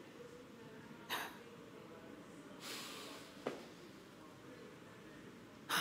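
Faint breathing from a person over quiet room tone: a short sharp breath about a second in, a longer breath out around three seconds in, then a small click.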